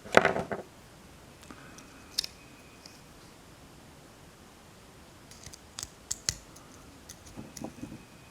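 Sparse light metallic clicks and scrapes of a hand tool prying the escutcheon loose from a 1935 Ford door handle, with one louder scrape right at the start.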